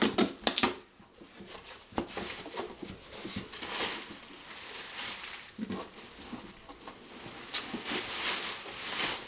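A few sharp clicks and knocks in the first second, then cardboard box flaps being opened and plastic packing material rustling and crinkling as a wrapped rubber mask is pulled out of the box.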